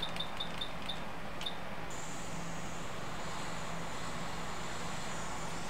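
A run of quick light ticks, then about two seconds in a hot air rework station starts blowing with a steady hiss and a thin high whine, reflowing a piece of solder onto a repaired pad on a phone logic board.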